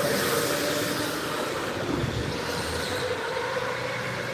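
Go-karts running on an indoor track: a steady mechanical whine over a wash of motor and tyre noise.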